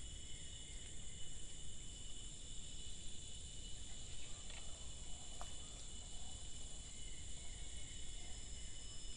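Steady chorus of insects, several high, even drones held at once, over a faint low rumble.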